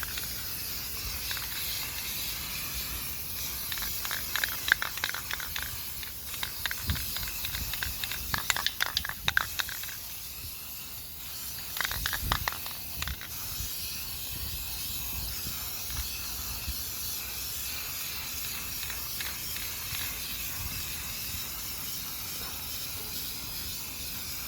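Aerosol spray-paint can spraying quick-dry oil-based primer in a steady hiss, broken a few times by short spells of sharp clicking and rattling.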